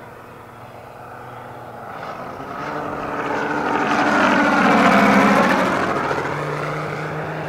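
Scale RC Sea Fury's Moki 250cc five-cylinder radial engine, geared through a planetary gearbox to a large five-blade propeller, making a flyby pass: it grows louder to a peak about five seconds in, then its pitch drops as it passes and it fades away.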